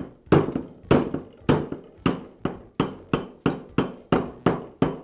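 Rubber mallet tapping the end of a router's armature shaft again and again, driving the shaft down into a new ball bearing seated on a vise anvil. The taps come in a steady run, about two to three a second.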